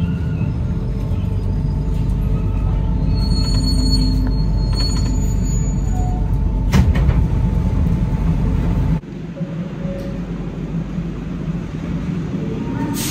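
Alstom NS-93 rubber-tyred metro train running into a station, heard from inside the car: a steady low rumble with a brief high squeal about three to five seconds in and a sharp knock near seven seconds. About nine seconds in the rumble cuts off to quieter platform ambience, with a sharp click near the end.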